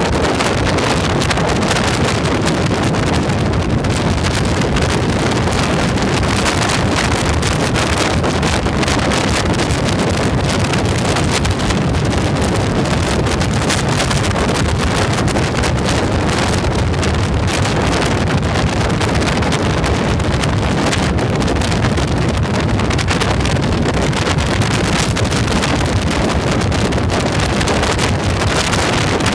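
Heavy, steady wind noise on the microphone of a camera mounted on a moving motorcycle, with the bike's engine and road noise underneath.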